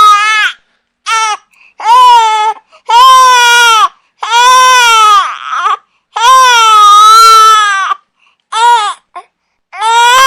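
Baby crying loudly in a run of cries, some long and some short, with brief pauses for breath between them. One cry breaks into a rasp a little past five seconds in.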